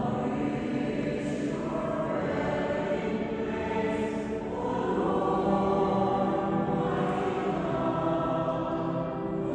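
Choir singing a hymn, with long held notes.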